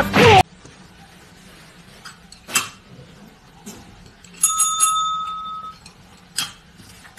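Gold service bell struck by a cat's paw: a bright ding that rings on for about a second before fading.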